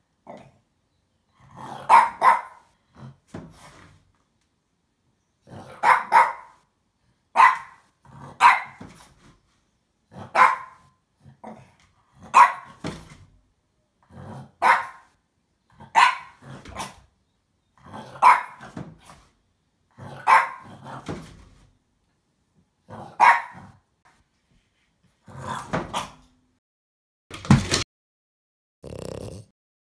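French bulldog barking at a flat cardboard box, single barks or short pairs every couple of seconds. Near the end a loud sharp thump as the box falls flat onto the floor, followed by two softer, lower sounds.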